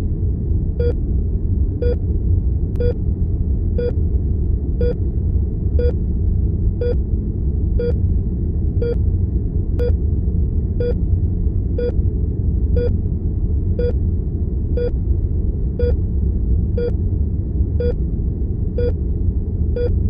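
Heart monitor beeping steadily, a short pitched beep about once a second, over a steady low rumble of room tone.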